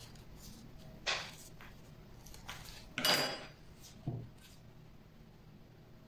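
Hands handling a pink EVA foam petal and plastic moulds on a cutting mat: a few short rustles and scrapes, the loudest about three seconds in, and a soft knock about a second later.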